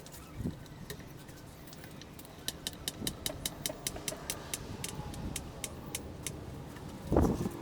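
A run of sharp, light clicks, irregular at about two or three a second through the middle, then a dull thump near the end.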